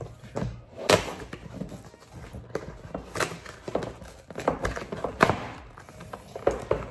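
Cardboard mailing box being pulled and torn open by hand: irregular crackles, scrapes and knocks of the cardboard, with a sharp loud snap about a second in and another after five seconds.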